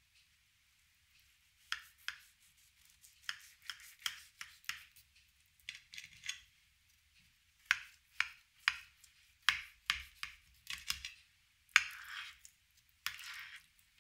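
Serrated knife sawing through the browned cheese crust of a baked potato and chicken gratin, a string of short, sharp scraping strokes in uneven bursts starting about two seconds in.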